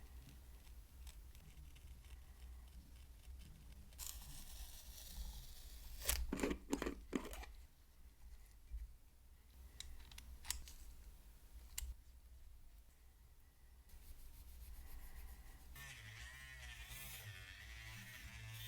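Small handwork sounds: a few seconds of scratchy scraping, then a quick cluster of sharp clicks and knocks, a couple of single clicks, and a steadier scratchy noise near the end.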